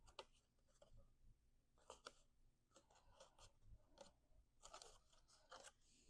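Faint crackles and rustles of cardstock being handled and folded, in short scattered bursts.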